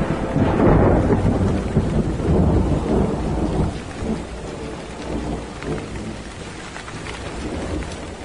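Rain with a rumble of thunder, loudest in the first few seconds and then slowly fading away.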